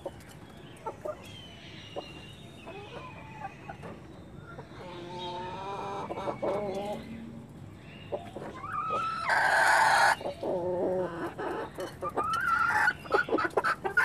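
Desi golden misri hens and roosters clucking with short, scattered calls, and a loud harsh call of about a second roughly nine seconds in.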